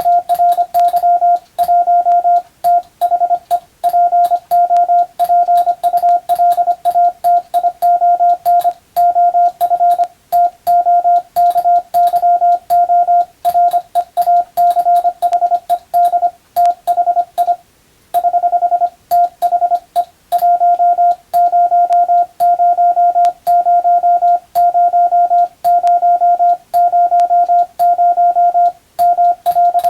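Morse code (CW) as a single steady beeping tone, keyed on and off in rapid dots and dashes for telegraphy receiving practice. There is a brief pause about eighteen seconds in.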